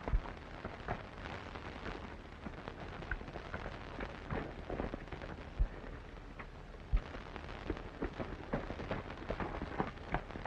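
Horse hooves clopping at a walk, irregular knocks over the steady hiss and hum of an old film soundtrack, with a few heavier low thumps.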